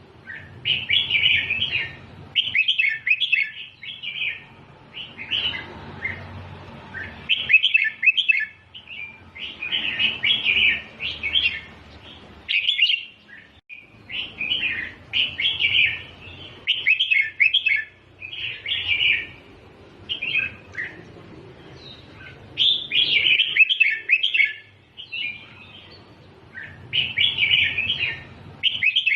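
Red-whiskered bulbul singing, repeating short bubbly phrases in clusters of a second or two with brief pauses between.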